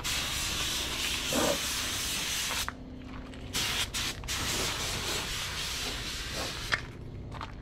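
Compressed-air paint spray gun hissing as it sprays, in runs that break off for about a second roughly three seconds in and briefly again near the end.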